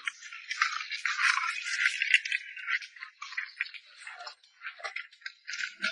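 Dense, irregular dry clattering and rattling of live crabs and catch being shaken about and sorted in a tray or basket.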